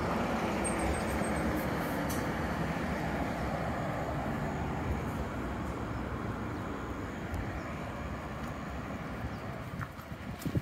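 Road traffic on a wide main road: a steady rush of passing vehicles, loudest at the start and slowly dying away, with a few light taps near the end.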